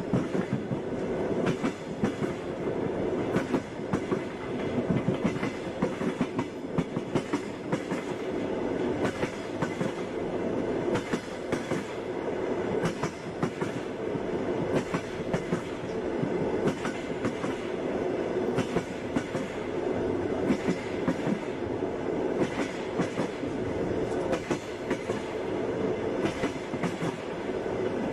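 Passenger train running on the rails: the wheels clatter over rail joints as frequent, irregular knocks over a steady rolling rumble.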